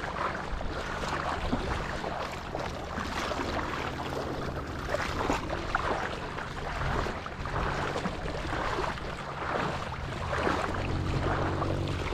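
Sea surf and wind: a steady rushing noise that swells and ebbs, with a faint low hum underneath.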